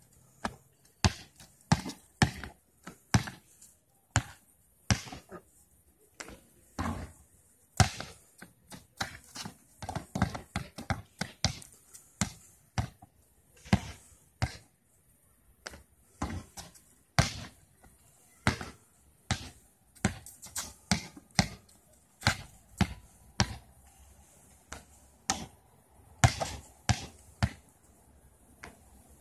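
A basketball bouncing on a paved outdoor court: runs of dribbling at about two to three bounces a second, broken by single thuds as shots are taken and the ball comes back down.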